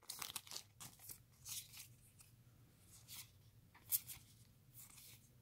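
Faint rustling and light clicks of trading cards and their foil booster-pack wrapper being handled as the cards are pulled out and looked through, with one sharper click about four seconds in.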